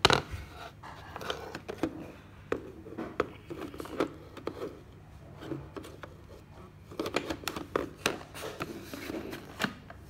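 Plastic clicks and scrapes as an Ecovacs Deebot robot vacuum is handled, with a sharp click at the start and a quick run of clicks in the second half. No motor is running.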